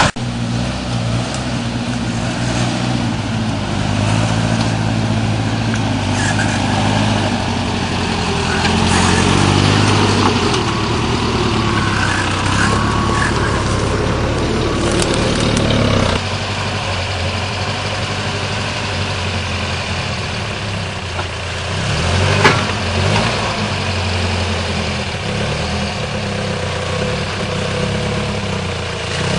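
Off-road 4x4 engine running steadily at low revs. The engine note changes about halfway through, and there is a single sharp knock a few seconds later.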